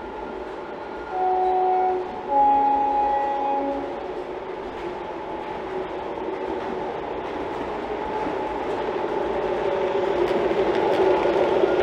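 Two-tone diesel locomotive horn from an O gauge model's DCC sound decoder, a higher note and then a longer lower one. It is followed by the diesel engine sound and wheels on rail, growing louder as the locomotive approaches.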